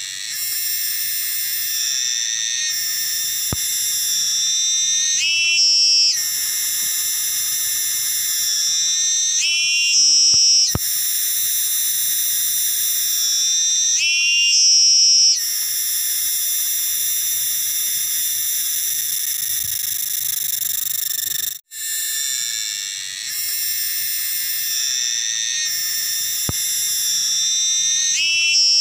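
Cicada (garengpung) calling loudly from a tree trunk: a continuous shrill, high-pitched buzz. Three times in the first half, and again near the end, it swells louder with a rising whine before settling back.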